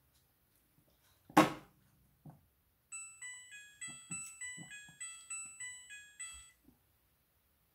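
Midea front-loading washing machine playing its electronic jingle, a run of about a dozen short beeping notes stepping up and down in pitch. Before the jingle comes a sharp, loud knock about a second in, then a softer one.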